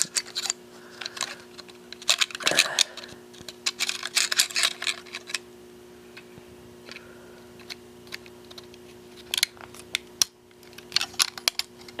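A laptop hard drive being pushed into its keyed connector adapter by hand: quick runs of small clicks, taps and scrapes of the drive, connector pins and adapter being handled, over a faint steady hum. The clicks crowd the first half, pause, and come again shortly before the end.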